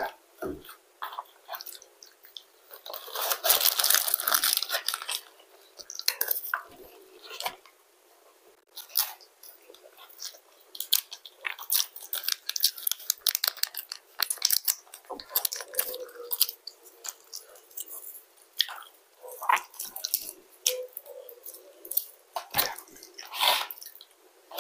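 Close-miked eating sounds: chewing of a crispy fried chicken fillet and fries, with irregular crunches and wet mouth clicks. About three seconds in there is a louder stretch of crackling that lasts a couple of seconds.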